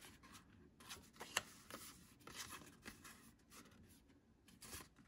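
Faint rustling and soft taps of paper journaling cards being handled and flipped through one by one, with one sharper tick about a second and a half in.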